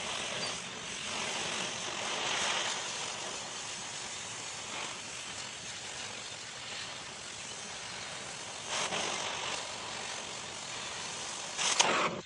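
Steady hiss of a cutting torch cutting through steel plate, with a few small swells in level.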